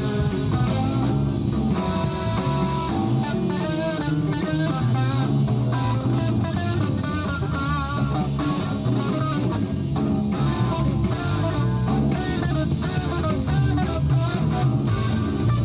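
Instrumental music led by guitar over a bass line, playing on with no voice.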